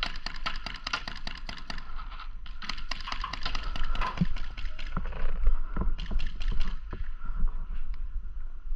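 Paintball markers firing in rapid strings of sharp pops, several shots a second, with short pauses about two seconds in and again between about four and a half and six seconds, then only scattered shots.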